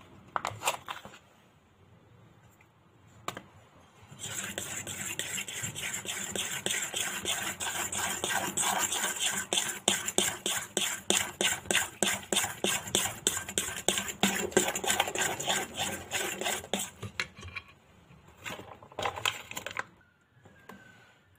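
Metal spoon stirring flour into mashed banana-and-egg batter in a stainless-steel bowl, clinking and scraping against the bowl in a quick, steady rhythm of several strokes a second. The stirring starts about four seconds in, stops near the end, then comes back briefly.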